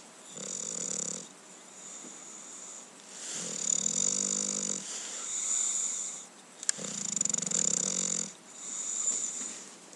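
English bulldog snoring in its sleep, three low rattling snores about three seconds apart, each followed by a breathy, hissing breath. A brief sharp click comes just before the third snore.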